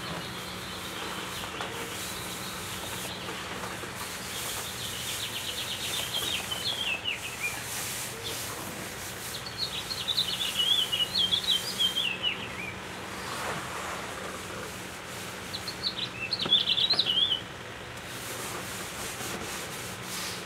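Birds chirping in three runs of rapid high notes that fall in pitch, over the soft rub of a damp cloth wiping a sanded wooden tabletop. The last run stops suddenly near the end.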